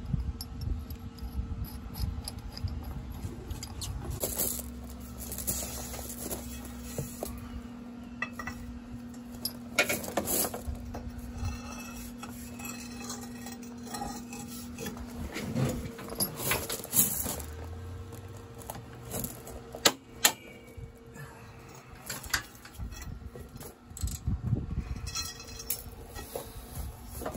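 Hand tools and metal parts clinking and rattling at irregular intervals during disassembly work, over a faint steady hum that stops about halfway through.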